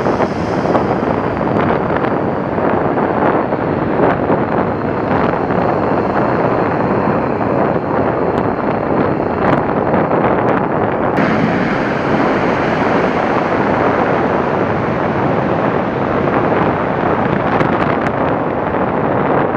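Belgian Air Force F-16's Pratt & Whitney F100 turbofan in afterburner on the takeoff roll: a loud, steady jet roar that changes in tone about eleven seconds in.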